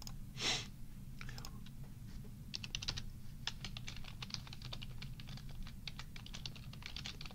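Computer keyboard typing: a few scattered clicks, then a quick run of keystrokes from about two and a half seconds in, over a low steady hum. A short, louder whoosh of noise about half a second in is the loudest sound.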